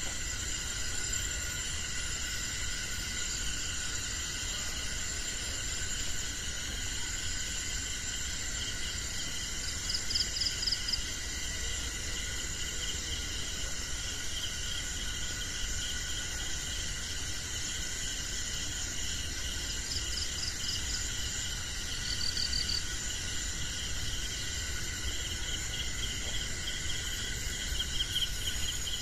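Night chorus of crickets and other insects, several steady high trills sounding together without a break. Brief pulsed chirping trills stand out now and then, about ten and twenty seconds in and again near the end.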